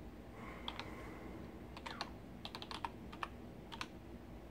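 Computer keyboard keys being typed: about a dozen quick clicks in uneven bursts, starting a little under a second in and stopping shortly before the end.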